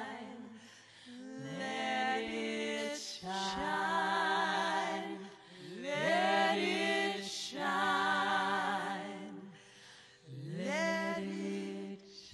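Four women singing close harmony in long held notes with vibrato, pausing briefly between phrases about every four to five seconds.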